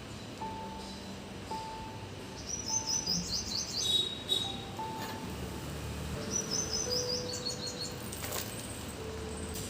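Small birds chirping in two quick runs of high notes that step downward, a few seconds apart.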